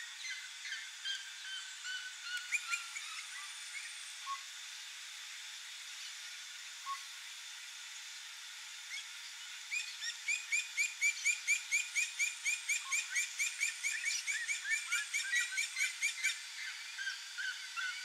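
Red-legged seriema song: a few scattered calls, then from about ten seconds in a fast, loud run of short, repeated notes, about four a second, lasting some six seconds. A steady high tone and faint chirps of other birds run underneath.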